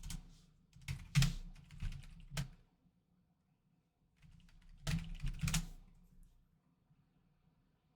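Light clicks and rustles of trading cards and plastic card holders being handled, in two short bursts, the second starting about four seconds in.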